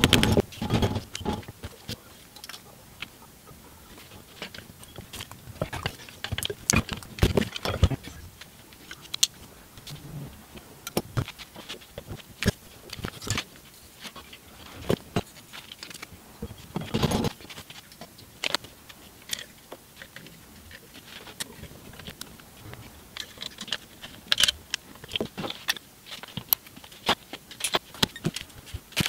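Irregular clicks, clinks and knocks of metal alternator parts being handled and fitted together by hand during reassembly, with a few harder mallet taps near the start.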